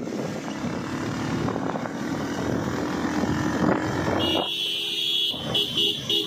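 A vehicle driving on a road, its engine and road noise running steadily. About four seconds in, a vehicle horn sounds one long blast, then a quick string of short toots.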